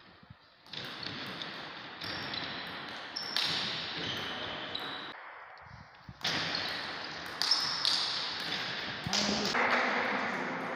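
Table tennis play: a celluloid ping-pong ball clicking off paddles and the table in a run of sharp hits, each ringing on in a reverberant hall, with brief high squeaks among them.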